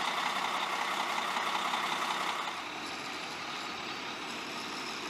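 Heavy military trucks running, a steady engine and road hiss that is louder for the first two and a half seconds, then eases somewhat.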